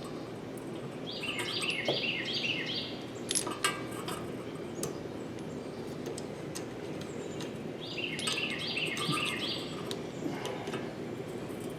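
A songbird singing a quick run of repeated chirps, twice: about a second in and again about eight seconds in. A few sharp clicks come in between, about three and a half seconds in, over a steady low background noise.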